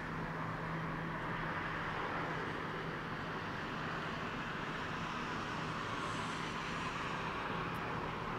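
A tram pulling slowly away from its terminus stop at a distance, heard as a steady hum of vehicle noise with a low constant drone beneath it.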